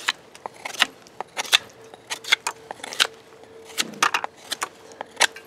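Kizlyar Kalibr combat dagger shaving a wooden stick: a run of short, sharp cutting strokes, about two a second. It is a check of how the edge still cuts wood after penetration tests.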